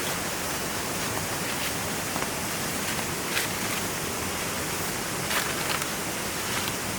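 River water rushing steadily, with a few brief clicks over the top.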